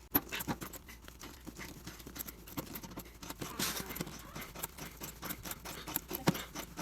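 Wrench turning a threaded pipe fitting loose on a well pressure tank: a run of irregular clicks, scrapes and creaks, with a longer rasp about three and a half seconds in.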